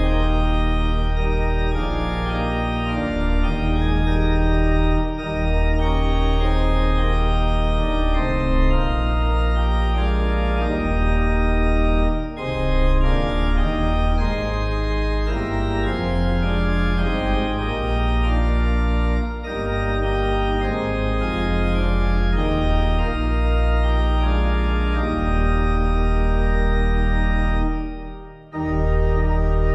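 Organ playing a postlude of sustained full chords over a deep bass line, the chords changing every second or two, with a brief break just before the end.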